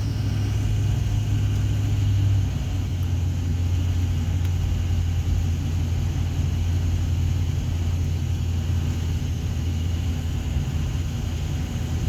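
Steady low drone of a vehicle's engine and tyres heard from inside the cabin while driving, dropping slightly in pitch about two and a half seconds in.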